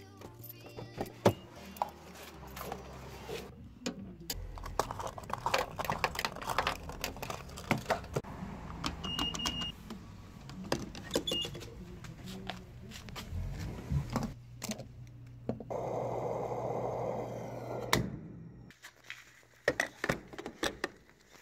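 Clicks and clunks of a car door being opened and a gas pump nozzle being handled, with a couple of short high beeps near the middle and a rushing hiss lasting about two seconds near the end.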